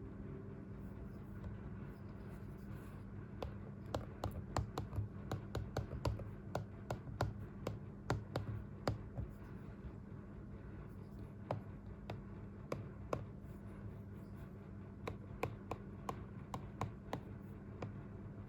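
Light, sharp taps and clicks at an irregular pace, coming in quick runs during the first half and more sparsely later, over a low steady hum.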